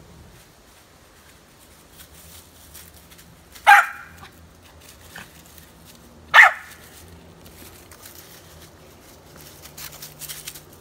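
A dog barks twice, two short loud barks about two and a half seconds apart.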